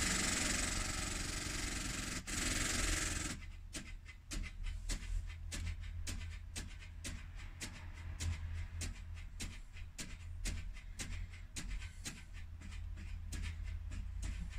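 Nissan X-Trail failing to start on a drained battery. A loud buzzing hiss for about three seconds cuts off, then gives way to rapid, irregular clicking, about four a second, from under the bonnet.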